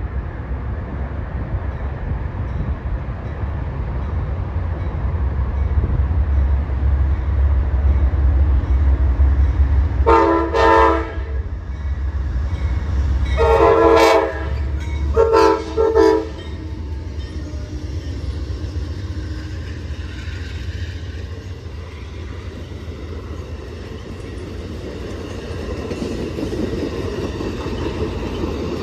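Amtrak GE Genesis P42DC diesel locomotive rumbling louder as it approaches. It sounds its horn in three blasts between about ten and sixteen seconds in, then its passenger cars roll past.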